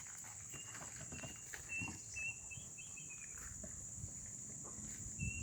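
Tropical forest ambience: a steady high-pitched drone of insects, with a bird giving a series of short whistled notes from about half a second in until past three seconds, and again near the end. Faint rustling in the leaf litter underneath.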